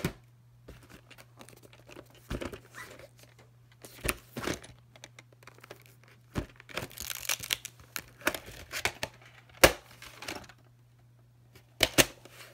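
A plastic clamshell VHS case and its cassette being handled: scattered rustling, scraping and clicks, with one sharp snap about ten seconds in and two more clicks near the end, over a faint steady low hum.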